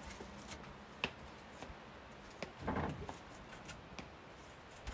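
Quiet hand-tool work: scattered light clicks and taps, a sharper click about a second in, and a short scraping rustle a little past halfway.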